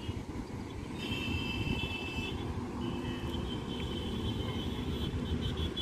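Wind buffeting the microphone, a steady low rumble. Faint high, steady tones sound briefly about a second in and again for a few seconds after.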